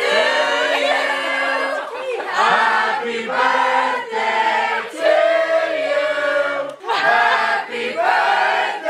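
A group of young people singing together loudly, many voices holding notes in short phrases, with shouts mixed in.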